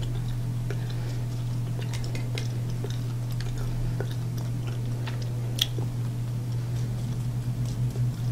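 Faint, scattered ticks and taps of a finger flicking a paint-loaded fan brush to splatter thinned acrylic paint, one a little sharper about halfway through, over a steady low hum.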